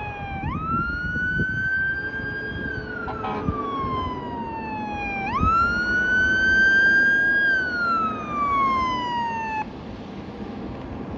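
Fire engine's electronic siren sounding a wail. Each cycle jumps up quickly, climbs slowly, then slides down over several seconds. It goes through two cycles and cuts off abruptly near the end, with engine and road noise underneath.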